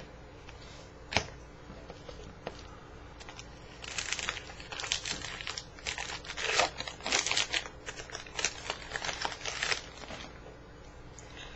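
A Bowman baseball card pack's wrapper is torn open and crinkled by hand: a run of crackling rips and crumples for about six seconds through the middle, after a single sharp tap about a second in.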